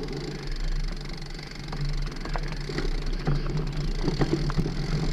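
Mountain bike riding along a dirt forest trail: a steady low rumble of tyres and wind noise, with scattered light clicks and rattles from the bike.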